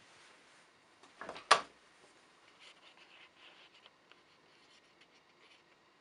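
A couple of soft taps, then one sharp knock about a second and a half in, followed by faint scattered clicks and rustling of handling.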